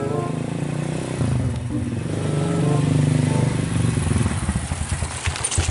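Small motorcycle engine running as the bike rides up toward the listener, growing louder over the first three seconds.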